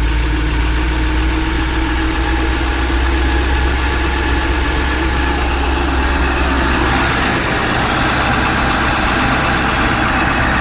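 Navistar MaxxForce 7 V8 diesel engine running at a slightly raised idle, with a high squeaking over the engine note that grows louder in the second half. The owner traces the squeak to a leak at the exhaust manifold rather than the turbo.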